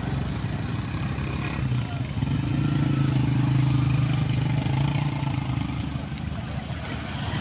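Diesel engine of a Caterpillar 120K motor grader running steadily. It grows louder about two seconds in and eases off again near the end.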